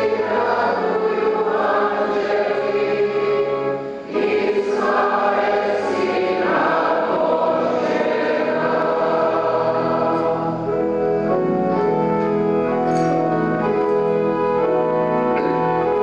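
Choir singing a hymn with steady held accompaniment chords. About ten seconds in, the singing fades and the held chords carry on.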